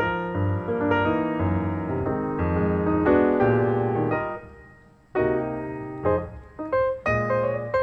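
Background piano music: a melody of struck notes that dies away about five seconds in, then a new phrase begins.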